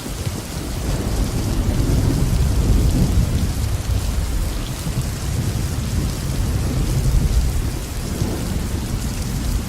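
Heavy rain falling in a steady hiss, under a deep rolling rumble that builds about a second in, swells twice and eases near the end.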